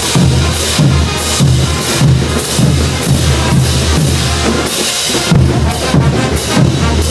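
Bolivian street brass band playing a morenada on the march: crash cymbals clashing and bass drums pounding a steady beat about twice a second under the band's brass.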